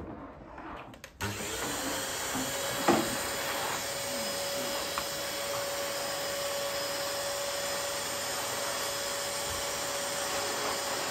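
Vacuum cleaner switched on about a second in, its motor rising to a steady pitch and then running steadily. A single knock comes shortly after it starts.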